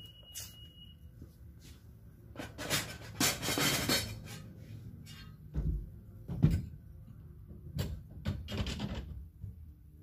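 Chrome metal display fixtures being handled: a rattling clatter of metal, then several sharp knocks and thuds. A brief high beep sounds at the very start.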